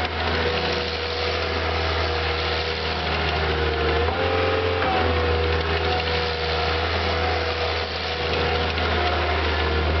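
Caterpillar 277C compact track loader's diesel engine running steadily while the machine drives and turns, with a steady whine over it that shifts in pitch briefly about four seconds in.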